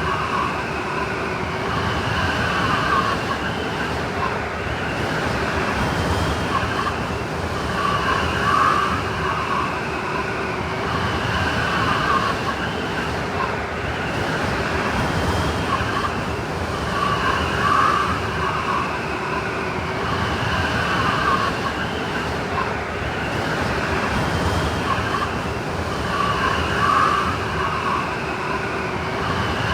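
Blizzard wind sound effect: a steady rush of wind with whistling, howling gusts that swell and fade, the same pattern coming round about every nine seconds as a loop.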